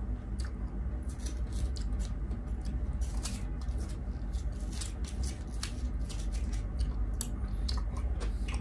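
A spoon scooping and scraping halo-halo, a shaved-ice dessert, in a cup, with irregular small clicks and crunches. A low steady hum runs underneath.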